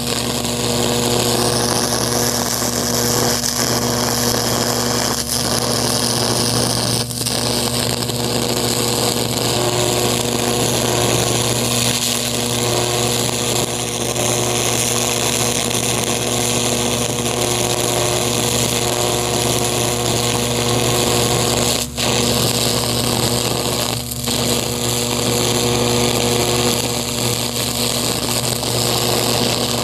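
High-voltage electric arc burning into a pumpkin's skin from an electrode on an insulated rod: a steady loud electrical buzz and crackle. It breaks off for an instant a few times as the arc is interrupted.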